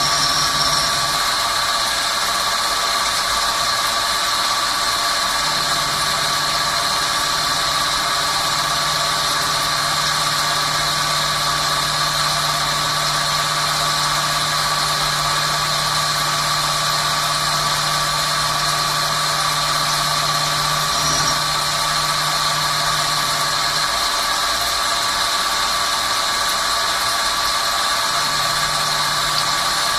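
Swiss-type CNC lathe running while machining bone screws: a steady machine noise with a constant high whine. A low hum joins about five seconds in, stops for a few seconds near the end, then comes back.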